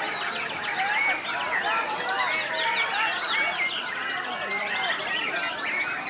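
White-rumped shamas singing in a contest field, many birds at once: a dense, unbroken mix of overlapping whistles, chirps and quick rising and falling notes.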